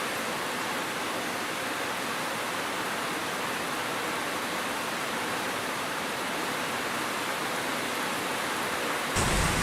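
Steady, even hiss of falling water, heavy rain or a cascade, with little bass. Just before the end it switches abruptly to a louder sound with a deep rumble underneath.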